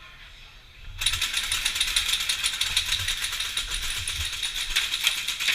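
Rapid, even mechanical clicking from airsoft gear that starts suddenly about a second in and runs on without pause.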